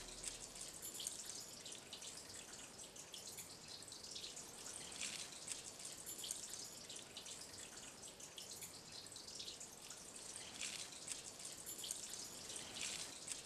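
Faint water dripping and trickling: irregular small drops over a soft hiss.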